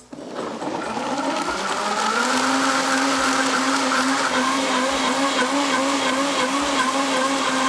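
Sencor countertop blender motor starting up and spinning up over the first two seconds, then running at a steady pitch as it purees a thick smoothie of banana, avocado, dates and almond milk.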